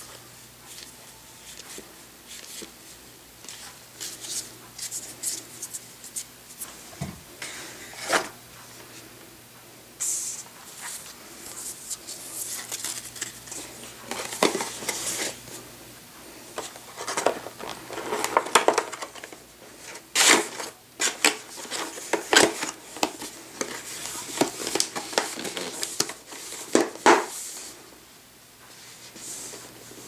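Hands handling a stack of trading cards and then a clear plastic blister tray and cardboard box: soft card shuffling and clicks at first, then irregular rustling, crinkling and clicking of the plastic packaging from about a third of the way in.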